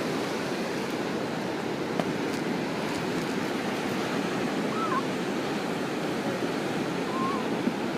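Steady wash of ocean surf, with a couple of faint short chirps in the middle.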